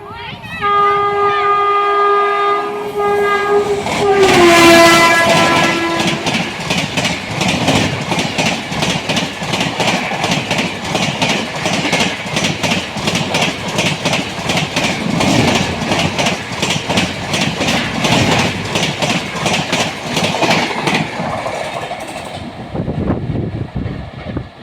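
Express train passing at speed: its horn sounds and drops in pitch about four seconds in as it goes by. Then comes a fast, even clickety-clack of wheels over rail joints, fading away near the end.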